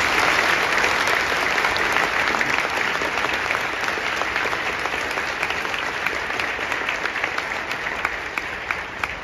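Large stadium crowd applauding: a dense wash of clapping that sets in at once and slowly thins out, with single claps standing out near the end.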